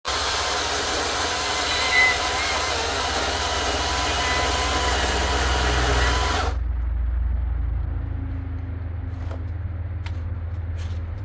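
Greenworks Commercial 82V battery chainsaw running hard through an oak log, then cutting off abruptly about six and a half seconds in. A low hum and a few faint clicks follow.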